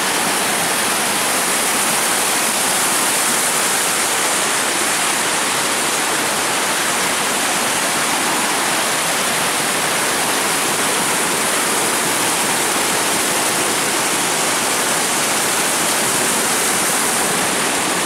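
Small waterfall cascading over mossy rock ledges, a steady rush of falling and splashing water.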